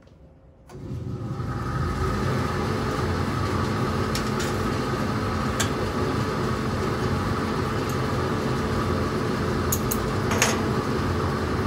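Hand-held gas torch flame coming on under a second in, then running steadily with a rushing hiss and low rumble as it dries the flux on a brass piece before soldering. A few light clicks over it.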